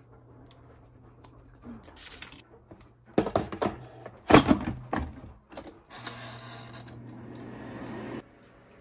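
Queen Made air fryer's basket handled with plastic clunks and rattles, slid shut, then the air fryer running with a steady fan whir and low hum for about two seconds before cutting off.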